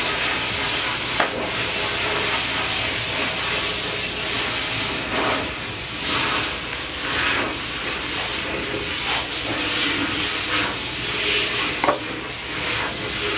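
Steady hissing noise, with a few short light clicks.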